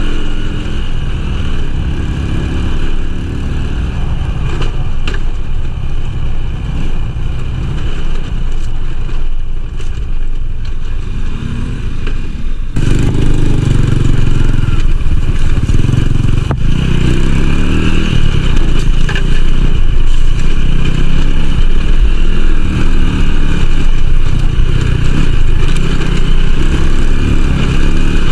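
Small motorcycle engine running while riding off-road, with rumble and rattle. The sound jumps abruptly louder about halfway through and stays loud.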